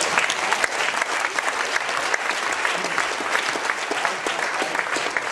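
Audience applauding: many hands clapping together, a steady dense patter.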